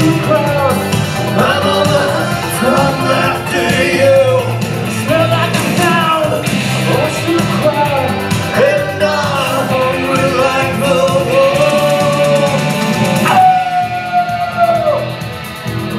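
Rock song with a singer over a loud band backing, the singer holding one long note near the end.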